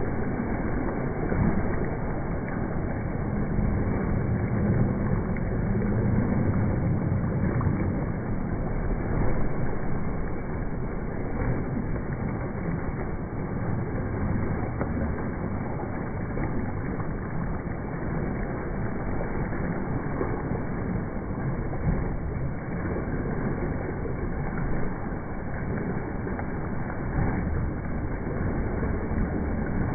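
Steady splashing of a swimmer kicking along a pool lane, feet churning the surface.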